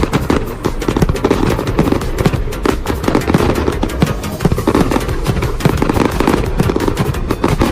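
Fireworks bursting in rapid, overlapping succession: a continuous dense crackle of sharp bangs and pops with no break.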